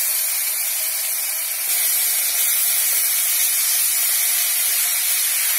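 Ginger-garlic paste sizzling in hot oil in a kadhai: a steady, even hiss.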